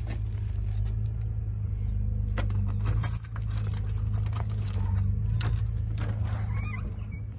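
A bunch of keys jangling in short bursts, over a steady low hum. The hum fades near the end.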